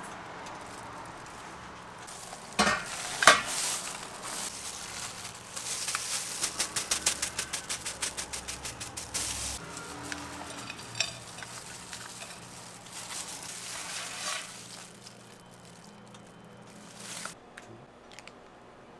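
Crepe cooking on a hot griddle, sizzling, with utensils knocking and scraping. Two sharp knocks come about three seconds in, then a quick run of rhythmic strokes, about five a second, for several seconds.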